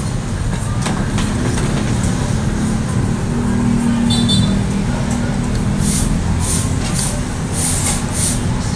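Steady low rumble of road traffic, with a metal spoon scraping and clinking against the bowl over the last few seconds.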